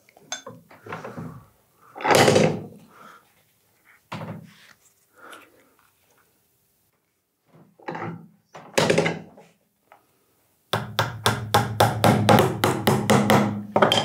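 Small hammer driving brass upholstery nails through leather into a wooden bellows board. A few separate knocks come first, then near the end a quick, even run of light taps, about five a second.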